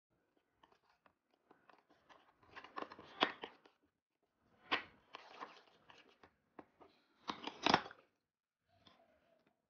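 Metal spoon stirring and scraping in a small stainless-steel bowl, mixing paneer into a thick spice marinade: clinks and scrapes in three spells, the loudest near the end.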